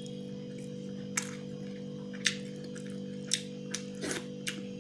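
A person chewing a handful of rice and curry with their mouth, making a series of sharp wet lip-smacking clicks about a second apart, over a steady droning hum.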